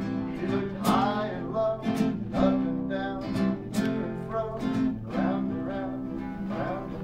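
Acoustic guitar strumming chords in a steady rhythm, an instrumental passage between sung lines.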